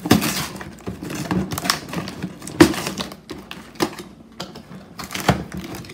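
A cardboard box being torn open by hand, with irregular cracks, crackles and rips of cardboard and packing tape; the loudest rips come at the start, in the middle and near the end.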